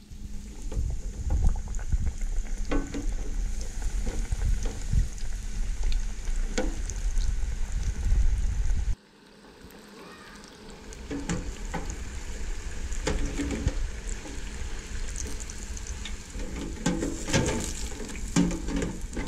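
Battered carp pieces deep-frying in hot oil at 375°F in a two-basket electric deep fryer, bubbling and crackling steadily. The sound drops off suddenly about halfway through and then builds back up.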